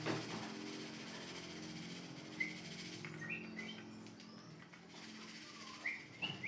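A bird chirping: a handful of short, high chirps from a couple of seconds in, over a low steady hum.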